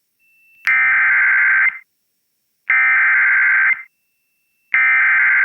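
Emergency Alert System SAME header: three one-second bursts of buzzy digital data tones, about a second apart. This is the coded opening of a broadcast Severe Thunderstorm Warning.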